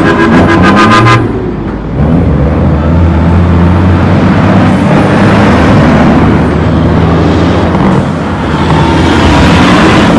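Heavy diesel dump trucks driving past one after another at close range, their engines running loud and low. There is a short lull between trucks about a second and a half in.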